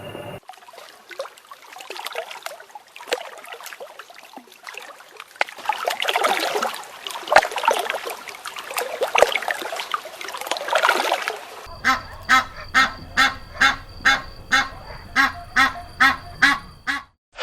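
Farm waterfowl calling: a flock's dense, overlapping chatter, then about two thirds of the way in a single bird's even series of about a dozen honking calls, two to three a second, stopping just before the end.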